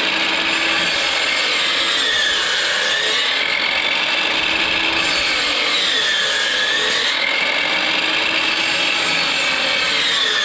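Power saw running continuously while cutting wood, making repeated half-depth kerf cuts to notch a 3.5-inch post; its pitch sinks and recovers about every three to four seconds as each cut is made.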